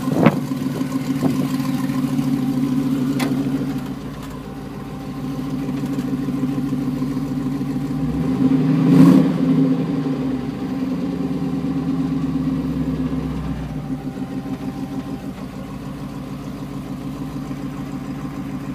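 A 1951 Chevrolet pickup's engine idling steadily. It is revved once, rising and falling, about halfway through. There is a sharp click just after the start.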